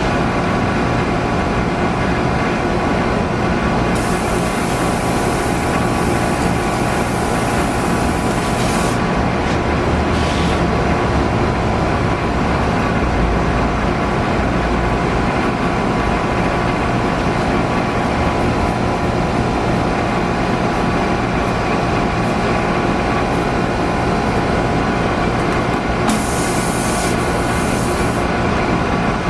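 A steady mechanical running noise, like a motor running, with two spells of sharp hiss: one from about four to nine seconds in and a shorter one near the end.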